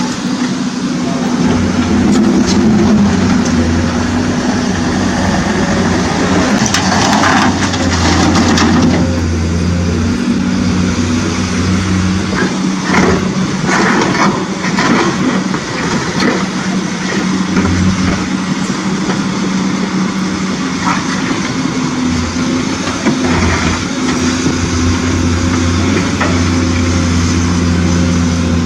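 Motors of radio-controlled construction models running steadily, with stones clattering and crunching in two spells, about a quarter of the way in and again around the middle.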